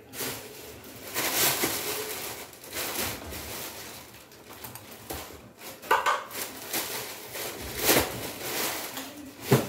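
Spoon and fork scraping and clinking against plates while eating, with a few sharper clinks about two-thirds of the way in and near the end.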